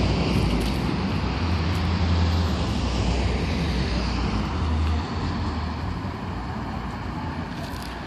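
Steady street traffic noise with a low rumble that drops away about five seconds in.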